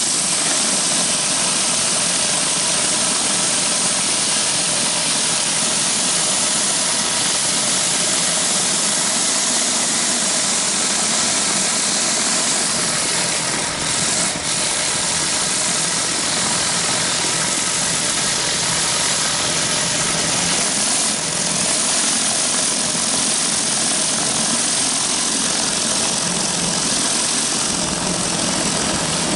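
Pressure washer running steadily, its high-pressure spray hissing under a 14-inch B.E. Whirlaway rotary surface cleaner as it is pushed over concrete, with a continuous engine drone.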